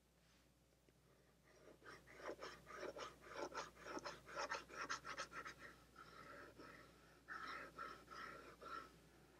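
A stylus scratching across a drawing tablet while colouring in, in quick back-and-forth strokes about four a second starting a second and a half in, turning into a few longer drags near the end.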